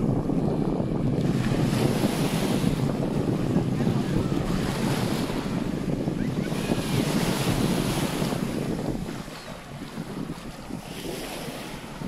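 Small waves breaking and washing up along a sandy Baltic Sea shore, the surf swelling and fading every few seconds, with wind buffeting the microphone. The wind eases after about nine seconds.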